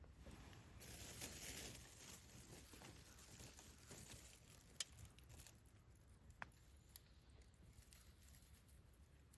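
Wood campfire crackling faintly, with a soft hiss of burning and scattered small pops and snaps; the sharpest pop comes a little before halfway.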